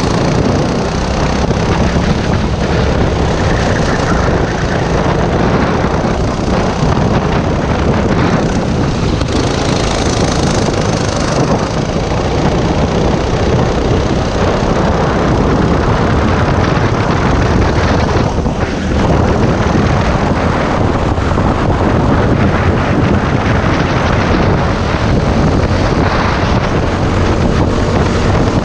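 Racing kart engine running hard through corners and straights, heard from on board with wind buffeting the microphone. The driver says this engine was well down on power.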